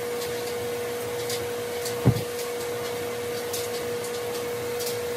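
Steady electric motor hum with a constant pitched tone, broken by a single short thump about two seconds in.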